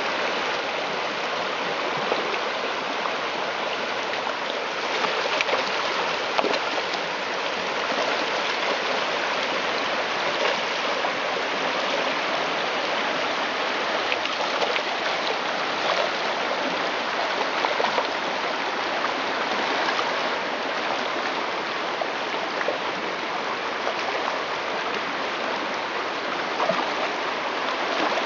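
Shallow, rocky creek running over stones: a steady rush and babble of flowing water.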